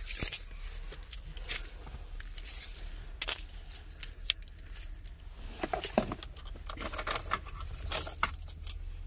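Keys jingling with repeated light clicks inside a pickup truck's cabin, over a steady low hum.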